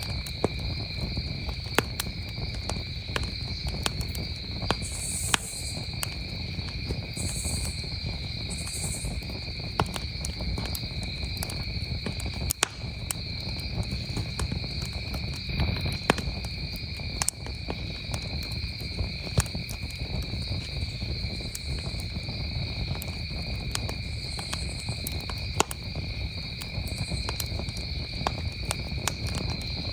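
Wood campfire crackling with frequent, irregular sharp pops, over a steady, unbroken trill of crickets.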